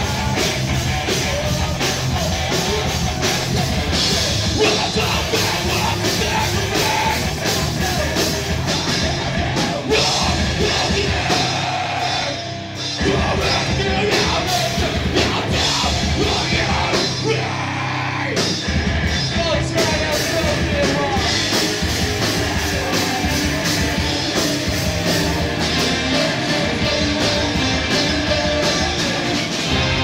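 Live rock band playing loud, fast punk/hardcore with distorted electric guitars, bass and a drum kit, over shouted vocals. The band drops back briefly about twelve seconds in, then comes back in full.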